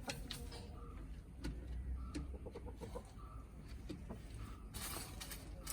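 Backyard chickens clucking softly while feeding, short calls repeating about once a second, with scattered light clicks. A steady hiss comes in near the end.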